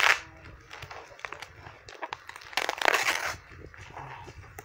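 Plastic parcel wrap crinkling and tearing as it is pulled and pierced open by hand. There is a sharp burst at the start and a longer one about two and a half seconds in, with light rustling between.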